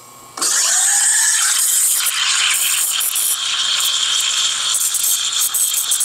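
Bezzera Duo espresso machine's steam wand frothing milk in a pitcher. The steam comes on suddenly about half a second in, with a short rising tone, then runs as a loud, steady hiss.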